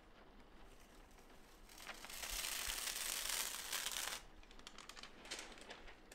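A printed sheet of transfer paper crinkling loudly as it is handled for about two seconds, starting about two seconds in, followed by a few lighter rustles.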